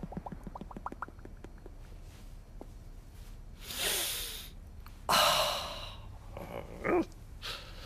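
Cartoon Mr Bean's wordless vocal sounds: a quick run of short pitched chirps in the first second or so, then two loud breaths about four and five seconds in, the second the loudest, and a short grunt near the end.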